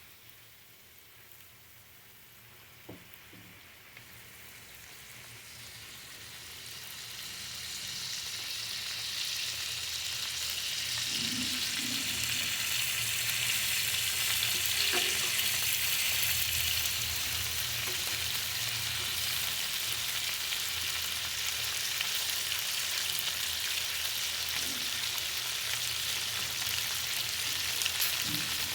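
Food frying in hot oil in a pan. The sizzle swells over the first several seconds and then holds steady, with a few faint knocks.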